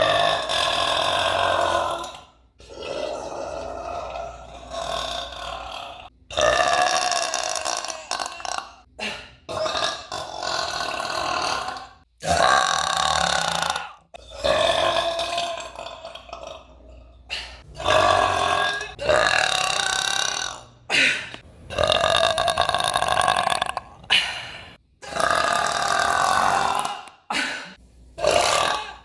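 A person's deliberate, drawn-out burps, one after another: about a dozen, each lasting one to three seconds with short breaks between.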